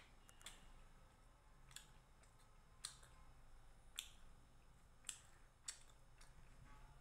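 Mouth sounds of someone chewing food: a handful of sharp, wet lip smacks and clicks, roughly a second apart, against near silence.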